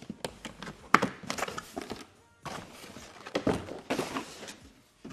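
Cardboard packaging being handled as a box is opened and its molded pulp insert is slid out. It makes a run of thunks and scrapes, with one sharp knock about a second in.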